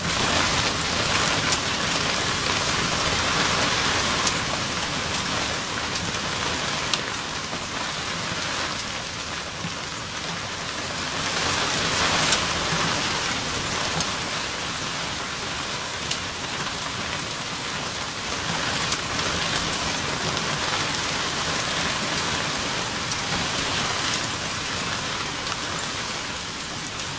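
Heavy rain and hail pelting down in a storm: a dense, steady hiss with occasional sharp ticks of hailstones, swelling in strength a few times.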